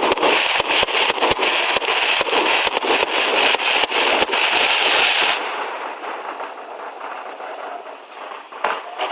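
Fireworks going off in a dense, rapid run of bangs and crackling. About five seconds in it cuts off suddenly to a much quieter background hiss, with one more bang near the end.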